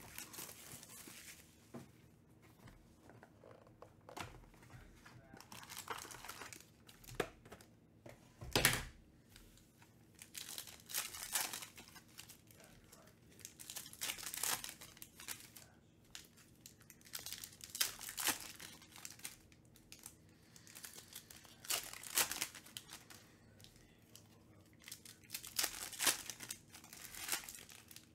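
Foil trading-card pack wrappers being torn open and crinkled in the hands, in repeated crackling bursts every few seconds, the loudest about nine seconds in.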